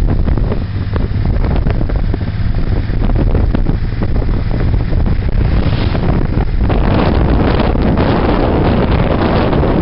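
Heavy wind buffeting the microphone on a moving Suzuki Boulevard motorcycle, with the bike's low engine rumble underneath, steady throughout.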